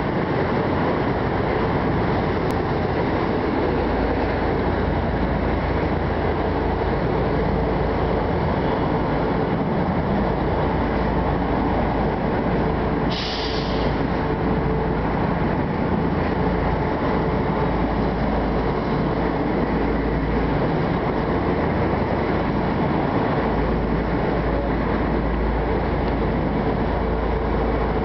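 Passenger train running along the line, heard from an open coach window: a steady rumble of wheels on the rails mixed with wind buffeting, and a brief higher hiss about halfway through.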